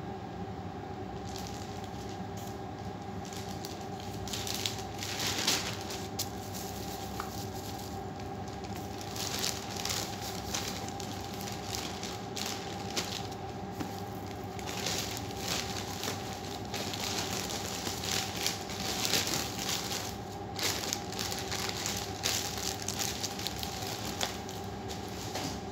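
Plastic packaging wrap crinkling and rustling in irregular bursts as it is pulled off and handled, over a steady background hum.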